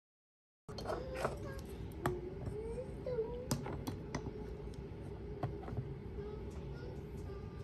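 Plastic Play-Doh ice cream maker toy being worked as modelling dough is pressed down through its extruder. A continuous wavering squeak is broken by several sharp clicks, starting about a second in.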